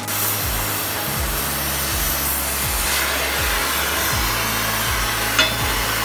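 Oxy-fuel cutting torch hissing steadily as its flame cuts through steel plate, with background music carrying a steady low beat underneath.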